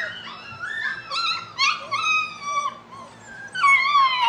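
Several American bully puppies whining and howling at once: high, overlapping cries that bend up and down, loudest near the end with long falling howls.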